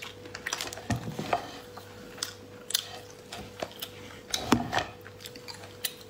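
Hard shell of a whole cooked lobster clicking and cracking as it is gripped and twisted apart by hand: scattered sharp snaps, the loudest about four and a half seconds in, with a duller knock about a second in.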